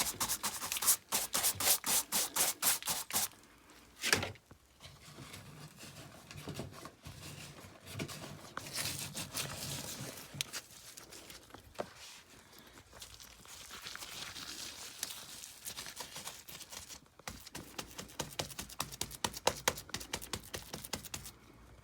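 Plastering trowel scraping and pressing rough lime plaster onto a wall in quick strokes, with a single sharp knock about four seconds in and softer rasping strokes between.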